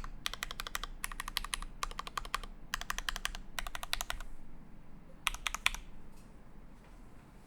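Typing on a Kibodo Studio Cyberpunk mechanical keyboard with factory-lubed Mekanisk Ultramarine switches in an acrylic plate and GMK Taro keycaps. It comes in quick runs of keystrokes with short gaps between them, pauses a little past four seconds, gives one more brief run a little after five seconds, and then stops.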